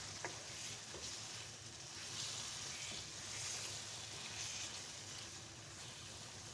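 Chicken curry with fried bitter gourd and onions sizzling softly in a nonstick pan as it is stirred with a wooden spatula. The sizzle swells and fades, with a faint click near the start.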